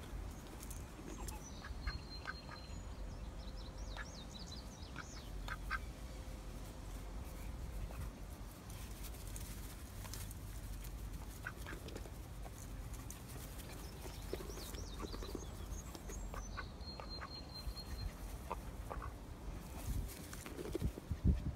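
White domestic duck giving short, soft quacks in two spells, near the start and again near the end, over a steady low rumble.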